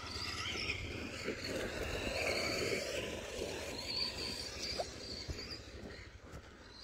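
Arrma Senton RC short-course truck's electric motor whining, its pitch rising and falling with the throttle. It is loudest two to three seconds in and fades toward the end.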